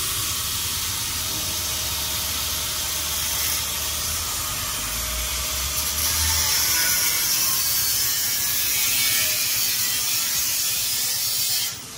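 Power cutter, most likely an angle grinder's cutting disc, slicing through a motorcycle exhaust pipe with a steady grinding rasp. The cut throws sparks, and the sound stops abruptly near the end.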